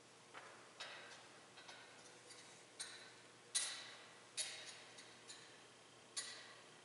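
Light metallic clinks, about eight of them at uneven intervals, each with a brief ring: the chains and lid of a thurible (censer) knocking as it is handled and swung for incensing the Gospel.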